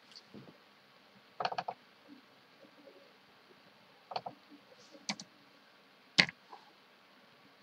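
Computer mouse and keyboard clicks: a quick run of about four clicks, then a couple more and two single clicks, the last one the loudest.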